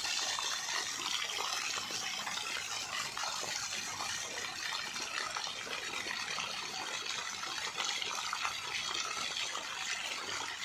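Water gushing and spraying from a burst pipe at an irrigation pump, a steady hiss of high-pressure spray.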